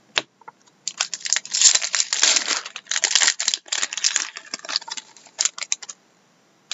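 Trading cards handled and flipped through by hand. A sharp click right at the start, then about five seconds of dense papery crinkling and card-edge flicks.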